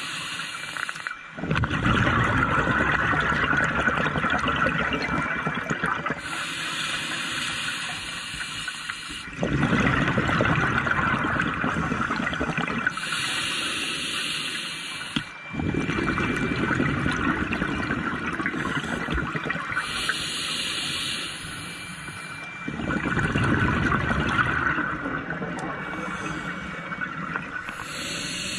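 Scuba diver breathing through a demand regulator underwater: a hiss on each inhalation, then a long rush of exhaled bubbles. Four slow breaths, each exhalation lasting several seconds.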